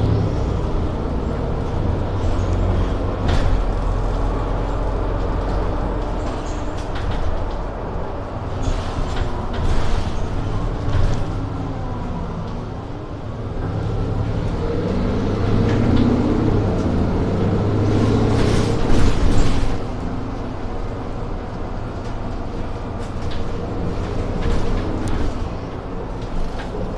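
Mercedes city bus's diesel engine running on the move, its note dipping and then climbing again about halfway through as the bus slows and pulls away. A short loud hiss comes about two-thirds of the way in.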